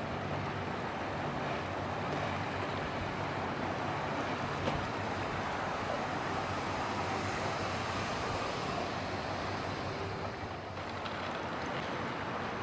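Steady wash of water and wind with a low engine drone underneath, from a harbour tugboat under way at speed.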